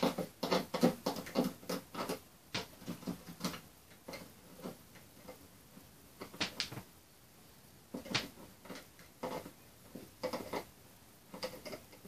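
Pliers tightening the hexagonal nuts on toggle switches in a hardboard control panel: a quick run of small clicks and taps for about four seconds, then single clicks every second or so.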